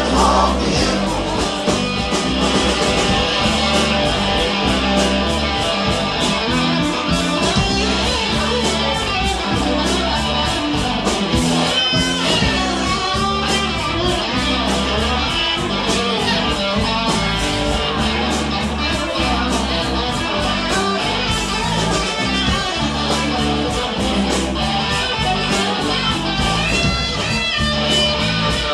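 Live rock band playing an instrumental passage without vocals: strummed and picked electric guitars over bass and a steady drum beat.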